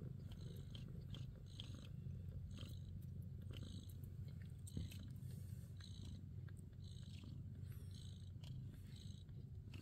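Nursing Abyssinian cats purring steadily and softly, a low pulsing rumble, with faint smacking sounds about once a second from the suckling newborn kittens.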